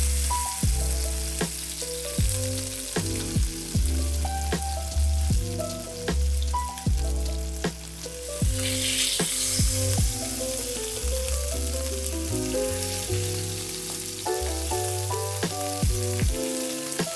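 Filet mignon steaks sizzling as they sear in oil in a nonstick frying pan, the hiss swelling briefly about halfway through as tongs move a steak. Background music with a bass line and steady beat plays underneath.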